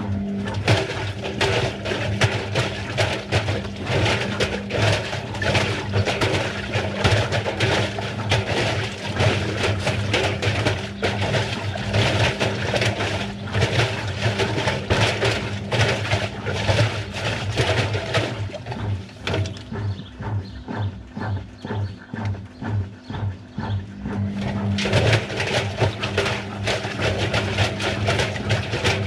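Washing machine running with balloons tumbling in the drum: a steady motor hum under dense, irregular knocking and rattling, which eases for a few seconds past the middle and then picks up again.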